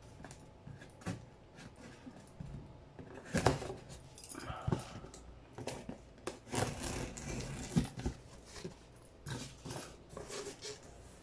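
A small knife slitting packing tape along a cardboard box, with irregular scrapes, rustles and clicks of the cardboard as the tape is cut and the flaps are pulled open.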